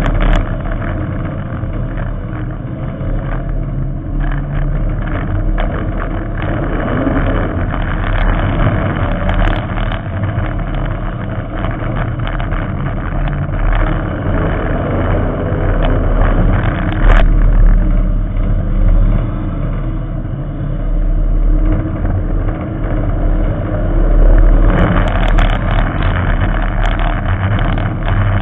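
Figure-8 race car's engine running hard, heard from the onboard camera on its hood, swelling and easing with throttle and mixed with rattles and road noise. A sharp knock cuts through about 17 seconds in.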